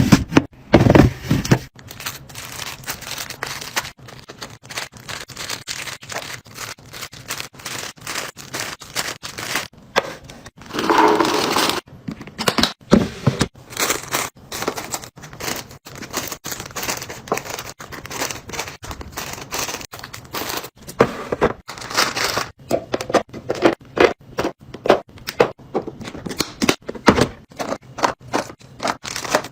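Food packaging and containers being handled during a fridge restock: many short clicks, taps and crinkles, with a longer stretch of rustling or tearing about eleven seconds in.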